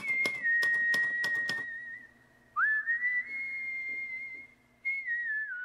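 Typewriter keys striking in a quick run for about the first second and a half. Under them runs a slow whistled tune of long held notes that slide from one pitch to the next, broken by two short pauses.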